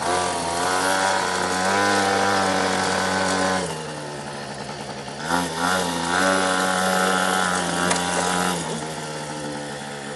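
Small two-stroke mini moto engine revving up and holding for about three and a half seconds, dropping back to idle, then revving again for about three seconds before settling to idle.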